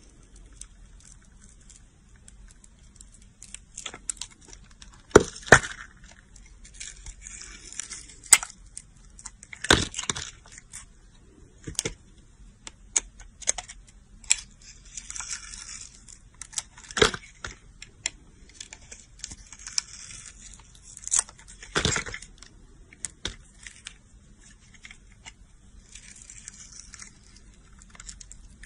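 A utility knife blade cutting into a bar of soap: soft scraping with scattered sharp cracks and clicks, a few of them much louder than the rest.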